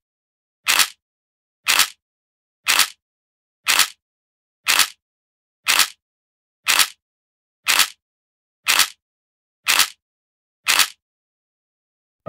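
Camera shutter sound effect repeated about once a second, eleven short clicks with silence between them.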